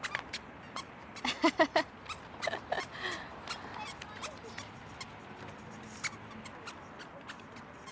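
Short squeaks and clicks scattered through as toddlers walk on paving, with a few brief high child vocal sounds about one and a half and two and a half seconds in.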